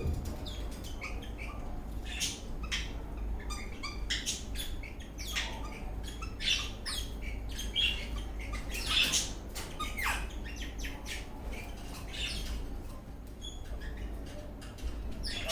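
Eastern rosella parrot giving a string of short, sharp chirps and squawks at irregular intervals, with one downward-gliding whistle about ten seconds in.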